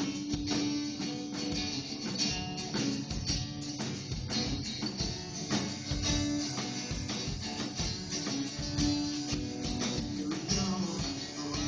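Strummed guitar playing the instrumental opening of a song, with a tambourine keeping a steady beat.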